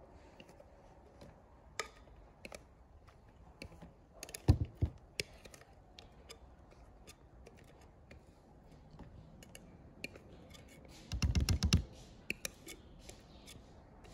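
Batter and liquid being poured into a plastic measuring jug, with light clicks and taps of handling. Short bursts of rapid low knocks come about four and a half seconds in and again around eleven seconds in.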